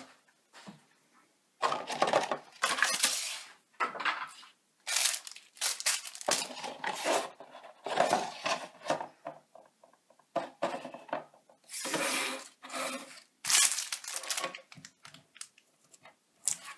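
Unboxed items and their plastic packaging being handled, shuffled and set down, giving irregular rustles and light clatters with short pauses between.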